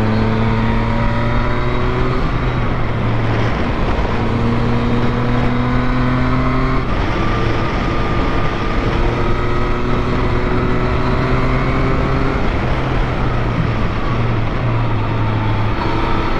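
Yamaha MT-09's three-cylinder engine running at road speed, its pitch climbing slowly, then breaking off and picking up again a few times, over heavy wind noise.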